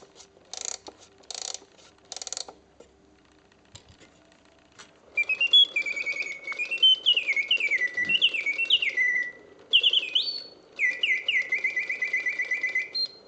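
Clockwork of a Karl Griesbaum mechanical singing bird cage: a few ratcheting clicks as it is wound up. About five seconds in, the bellows-driven bird whistle begins, a run of warbling chirps that each slide down in pitch, with brief pauses, over the faint whir of the movement.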